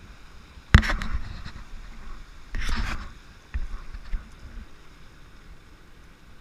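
Handling knocks on a plastic fishing kayak while a landed largemouth bass is held: a sharp thump about a second in, a brief rush of noise near the middle, then two lighter clicks.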